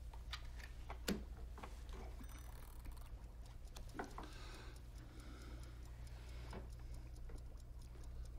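Quiet room tone: a steady low hum with scattered faint clicks and ticks, and one sharper click about a second in.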